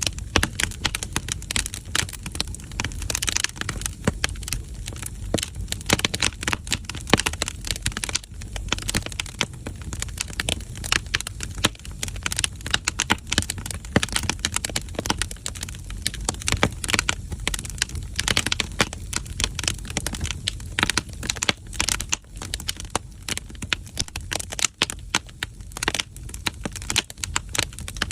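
Firewood crackling and popping in an agungi, a traditional Korean wood-burning firebox: dense, irregular sharp snaps over a low steady rumble.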